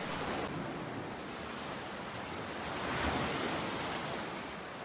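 Ocean surf washing onto a shore: a steady wash of breaking waves that swells about three seconds in, then eases.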